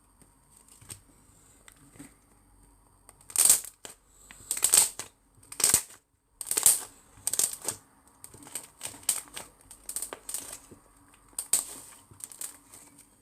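Slime being squeezed and worked by hand: a run of short, wet crackling squishes, roughly one a second, starting about three seconds in.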